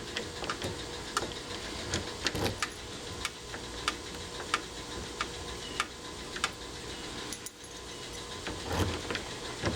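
Keys jangling and a string of light, sharp clicks about every half second as a newly installed Kwikset Kevo smart deadbolt is worked during a lock test; the lock is not responding and stays locked.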